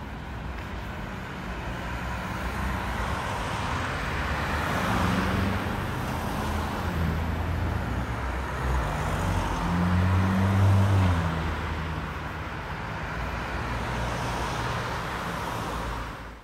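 City street traffic: cars driving past one after another, with engine hum swelling as the nearest ones pass, about a third of the way in and, loudest, around two thirds in. It cuts off suddenly at the very end.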